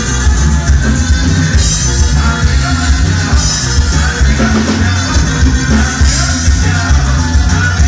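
Conjunto band playing loud Latin dance music with a steady, pulsing bass beat.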